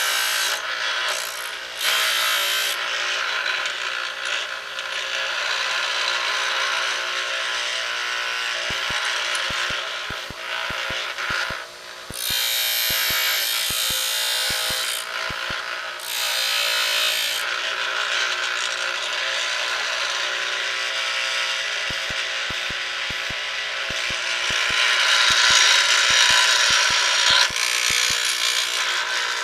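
Pedestal grinder running, with a high-speed steel lathe threading tool held in a fixture and ground against the wheel. The grinding hiss swells and fades as the tool is pressed on and eased off, with scattered rattling clicks from the vibrating fixture.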